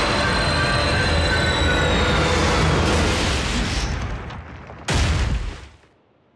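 Cartoon sound effects of an energy blast: a loud, dense rumble with a steady high whine that fades away after about three seconds, then one sudden heavy crash about five seconds in that dies away to silence.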